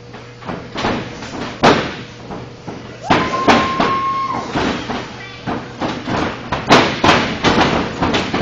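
Sharp slaps and thuds of pro wrestlers striking each other and hitting the ring, a dozen or so irregular hits with the loudest near the start and again near the end. Voices from the audience shout, with one long high-pitched call held for over a second about three seconds in.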